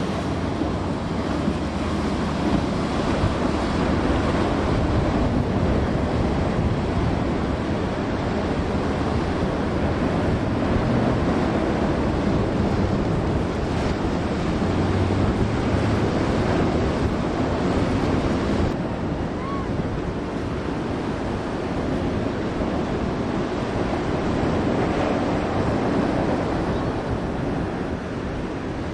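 Ocean surf and swells rushing through the inlet, with wind buffeting the microphone: a steady, loud rushing noise heaviest in the low end.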